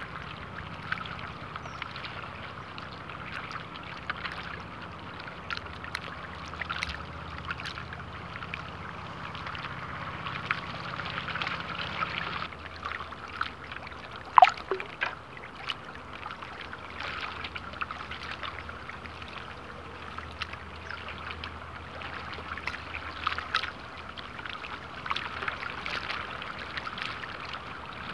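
Small ripples lapping and plinking at the waterline, a steady patter of little splashes. About halfway through, one short, sharp sound with a falling pitch is the loudest moment.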